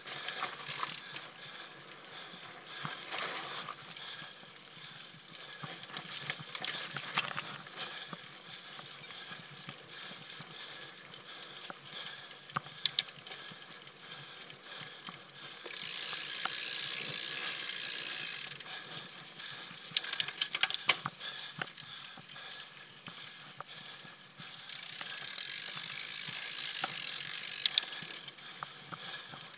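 Mountain bike on a dirt trail: the rear hub's freewheel buzzes while coasting, twice for about three seconds, once about halfway through and again near the end. Scattered clicks and knocks from the bike rattling over rough ground run throughout.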